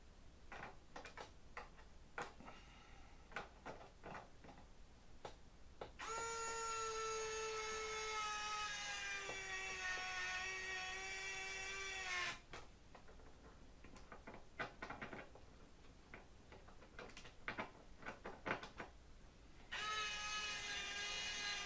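Small battery-powered electric screwdriver driving screws down into an aileron control horn: a steady whine that runs for about six seconds, then again for about two seconds near the end, its pitch sagging a little as the screw takes up load. Light clicks and taps of handling come in between.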